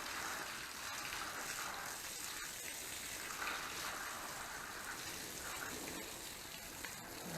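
Water pouring and splashing steadily onto soil as garden beds are watered, the flow swelling and easing now and then.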